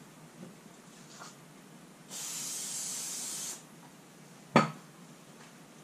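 Aerosol can of carb and choke cleaner sprayed onto the wet sharpening stone in one steady hiss of about a second and a half. A single short knock follows about a second later.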